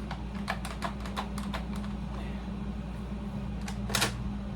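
Light plastic clicks and taps as a Nerf Motoblitz blaster is handled: a quick run of them in the first second and a half, then two more near the end, over the steady hum of an air conditioner.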